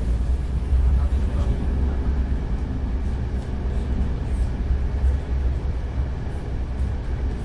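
Inside a moving passenger train carriage: a steady, deep rumble of the train running on the rails, with a few faint ticks and rattles.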